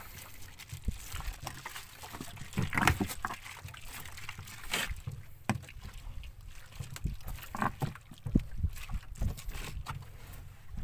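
Freshly caught squid in a foam cooler box, making irregular wet splashes and squelches as they are handled, over a low steady rumble.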